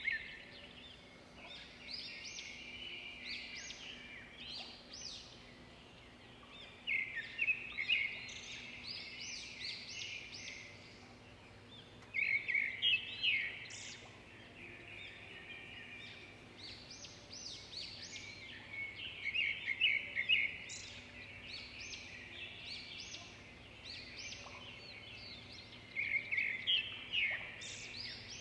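Songbird singing in bursts of fast trills and chirps, each a few seconds long, repeating about every five seconds over a faint steady hum.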